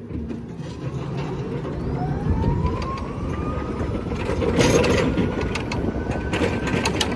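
Forklift driving: a motor whine that rises steadily in pitch over several seconds above a low rumble, with rattling and clatter growing louder from about halfway through.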